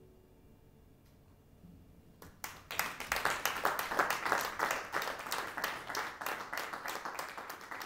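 Audience applause from a small concert crowd, breaking out about two seconds in after a quiet start and going on as dense, continuous clapping.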